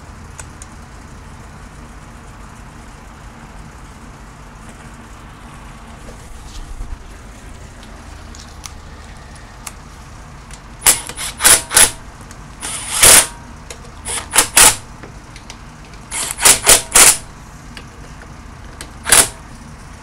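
Socket ratchet clicking in short bursts of strokes, tightening the air filter housing nuts on a Honda GCV160 lawn mower engine. The clicking starts about halfway through and comes in several groups.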